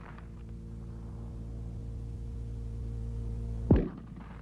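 A single sharp rifle shot from a P-17 (US M1917 Enfield) .30-06 bolt-action rifle about three and a half seconds in, over a steady hum.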